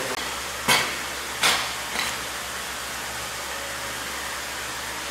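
A large cleaver-like knife chopping into the rib bones of a bluefin tuna side: two sharp chops under a second apart, then a lighter third, over a steady background hiss.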